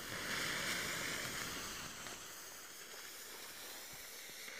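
Blackbox purple smoke torch hissing steadily as it burns and pours out thick smoke. The hiss is louder for the first two seconds, then settles fainter.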